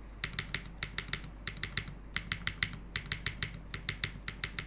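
Typing test on a Unikorn mechanical keyboard with modded Retool Black linear switches and GMK Striker keycaps: quick runs of keystrokes broken by short pauses.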